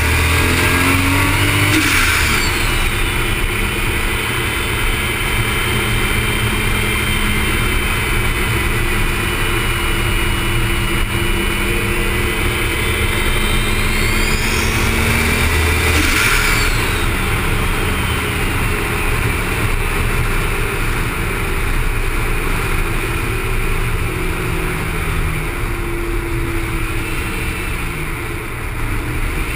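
Toyota Supra engine pulling hard down a race-track straight, its pitch gliding steadily between sharp breaks about 2 and 16 seconds in, like gear changes. Heavy wind and road noise on the low exterior camera runs under it throughout.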